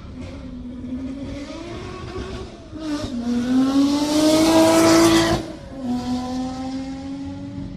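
Lamborghini sports car engine revving as it accelerates, its pitch climbing. About three seconds in it gets much louder and harsher for a couple of seconds, still rising, then cuts off suddenly and drops back to a steadier, lower engine note.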